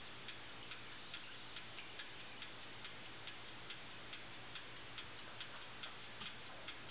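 A clock ticking steadily, about two and a half ticks a second.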